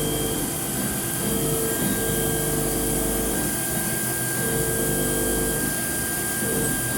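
Haas ST-20Y CNC turning centre running a machining cycle on aluminum parts: a steady mechanical din with a constant high whine, and a lower tone that starts and stops every second or two.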